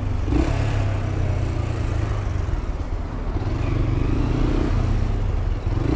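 Motorcycle engine running steadily at low speed, heard from the rider's position, with surrounding traffic noise.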